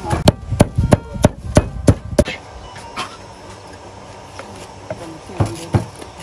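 Heavy, evenly spaced strikes of hand food preparation, about three a second: a run of about seven in the first two seconds, then a pause of about three seconds, and the strikes start again near the end.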